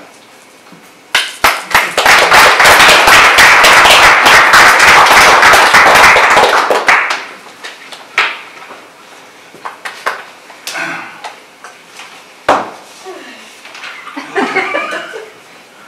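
Audience applauding: a few first claps about a second in, then full applause that fades out about six seconds later. Afterwards a few faint voices and a single knock.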